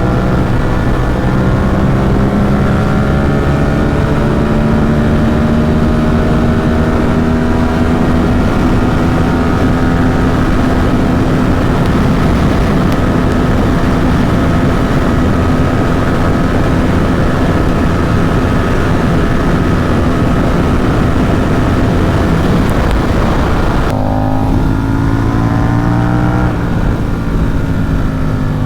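Ducati Supersport 950 S's 937 cc L-twin through an aftermarket Competition Werkes exhaust, running hard at speed with wind rush: the engine note climbs slowly and then holds steady under throttle. About four seconds before the end the throttle closes abruptly and the note drops, rises briefly, then falls away as the bike slows.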